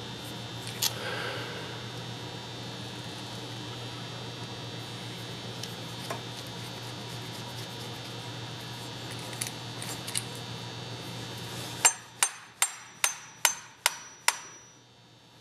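Steady electrical hum with a few light clicks of parts being handled, then near the end seven quick hammer taps, about two or three a second. Each tap rings briefly on the metal of a Hutchens air sander's motor as its sleeve is driven loose.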